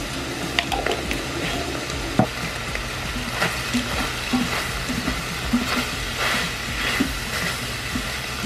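Ground beef and diced onion sizzling as they brown in an Instant Pot's stainless steel inner pot, with a utensil stirring and scraping the bottom in short repeated strokes.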